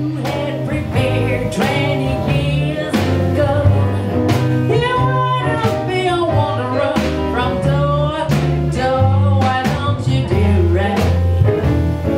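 Small jazz combo playing: a woman singing a melody with vibrato over guitar, piano, upright bass and drums, the bass stepping through notes under a steady beat.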